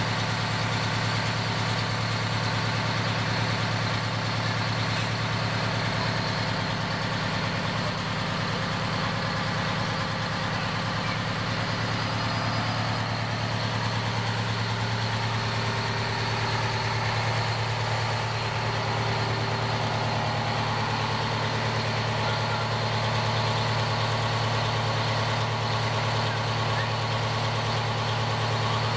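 Vintage American fire engine's engine idling steadily.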